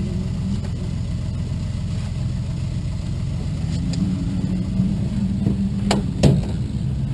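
Light aircraft piston engine idling steadily, with two sharp clicks about six seconds in.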